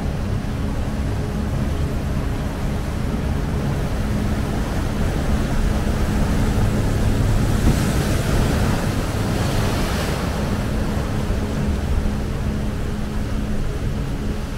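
Heavy surf breaking and washing in a rough sea, with wind rumbling on the microphone. About halfway through a bigger wave breaks and its hiss swells for a few seconds.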